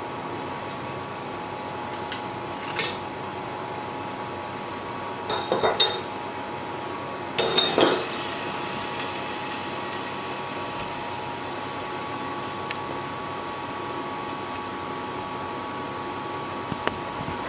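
Metal utensils clinking against a stainless steamer pot and a china plate as a steamed salmon fillet is lifted out and laid on the plate: a few light clinks, then two louder clusters with a short metallic ring. A steady hum runs underneath.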